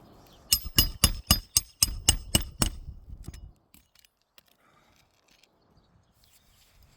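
Hammer driving roofing nails into shingles: about nine quick, ringing strikes, roughly four a second, then it stops.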